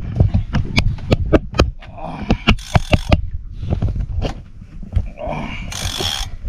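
Conventional fishing reel being cranked under load: a run of sharp mechanical clicks, two or three a second, over a steady low rumble, with two short hissing bursts about two and a half and six seconds in.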